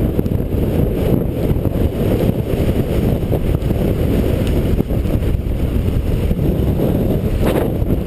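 Strong wind buffeting the microphone of a camera on a moving downhill mountain bike: a loud, steady, low rumble.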